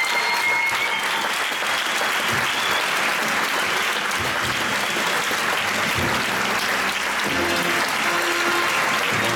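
Audience applauding steadily, with faint music underneath.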